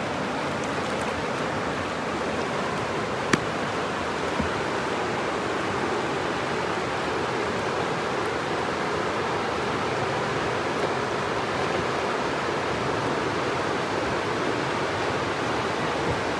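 River rapids rushing steadily, a dense whitewater roar with no let-up. A single sharp click sounds about three seconds in.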